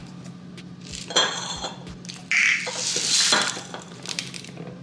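Glass canisters and their lids clinking, knocking and scraping as they are handled on a stone countertop. The loudest part is a rough scraping, rattling stretch about two seconds in that lasts about a second.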